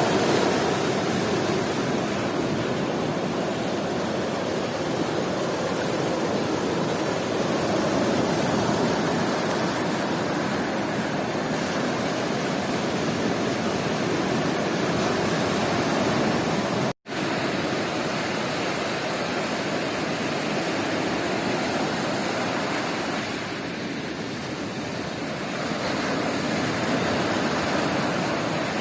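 Sea surf washing steadily on a sandy beach, a continuous rush of breaking waves that eases briefly a little past twenty seconds in. The sound cuts out completely for a split second about seventeen seconds in.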